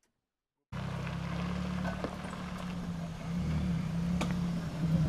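A brief silence, then a Jeep Wrangler's engine running as it drives slowly over a wooden plank bridge: a steady low hum, with a couple of sharp knocks.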